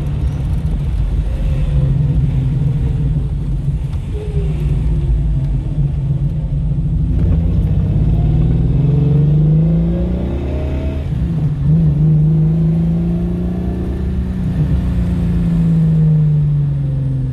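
Holden VK Commodore's 202 straight-six running as the car is driven, its pitch climbing under acceleration, dipping at a gear change about ten seconds in, climbing again, then falling away. The long-laid-up engine, which has been misfiring on some cylinders, is smoothing out a little.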